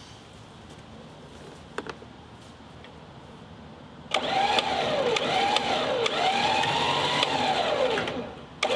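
Electric trailer winch starting up about four seconds in and pulling a 1956 VW single cab truck up onto the trailer, its motor whine swinging up and down in pitch as the load on the cable changes. It stops briefly near the end and starts again.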